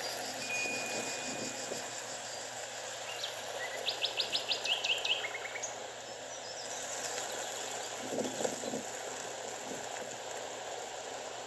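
Outdoor nature ambience: a steady rushing hiss with birds calling over it. A thin held whistle sounds early on, then a quick run of about eight sharp high chirps about four seconds in, and a few lower calls around eight seconds in.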